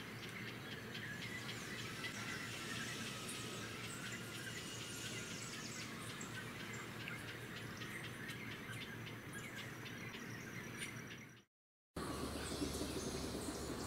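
Wild birds chirping and calling over a steady natural background, with a thin, steady high insect-like tone for a few seconds in the second half. The sound cuts out briefly near the end and resumes as a slightly louder outdoor ambience.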